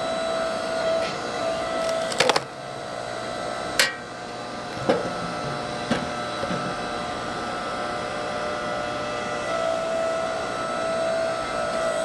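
8-ton hydraulic log splitter running steadily, its motor and pump giving a constant hum with a louder whine near the end as the ram pushes into a log. Several sharp cracks, about four in the first half, as firewood splits.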